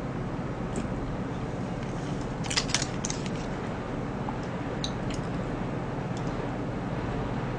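Small clicks from eating with chopsticks and a spoon, with a quick cluster of them about two and a half seconds in and a few single ones, over a steady background hiss.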